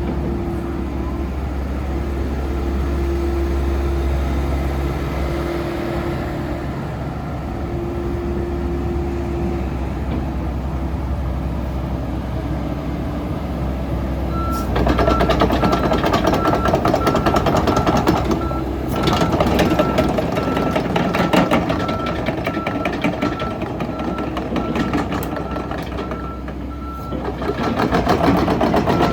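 Komatsu PC78US-8 excavator's diesel engine running; about halfway through the machine starts travelling, with its travel alarm beeping about once a second over a loud, rapid clatter of the tracks, which briefly drops off twice.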